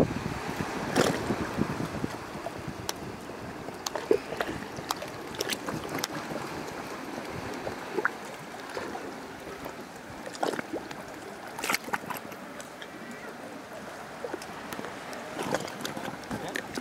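Seawater lapping and splashing close by, with many small irregular slaps.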